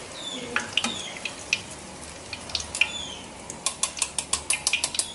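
Hot cooking oil sizzling in a wok as fried battered tofu is lifted out on a wire spider strainer, with sharp pops and crackles that come thick and fast in the last second or so.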